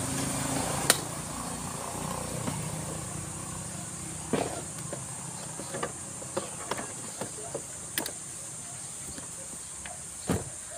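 Low motor-vehicle engine hum that fades away over the first few seconds, over a steady high insect buzz. There are a few short sharp knocks, the loudest near the end.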